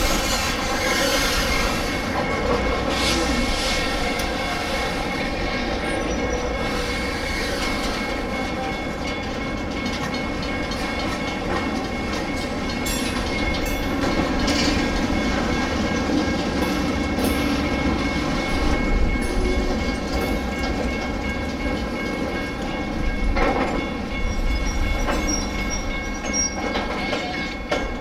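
Wisconsin & Southern freight train cars rolling past over a street crossing, a steady rumble with wheels clacking over the rail joints and a few louder clatters near the end.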